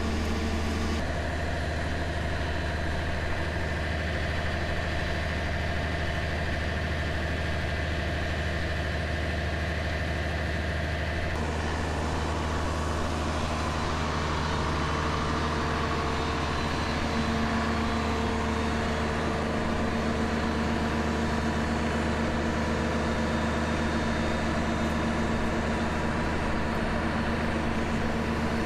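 Large truck engine idling steadily, a constant low hum with fixed tones.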